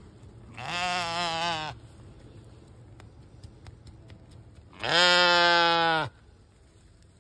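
Cameroon sheep bleating twice: a wavering bleat about half a second in, then a louder, steadier bleat about five seconds in.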